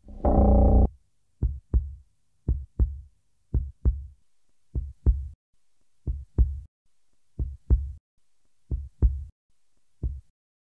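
Amplified heartbeat, a slow double thump (lub-dub) repeating a little less than once a second. A loud, low held tone sounds for under a second at the start.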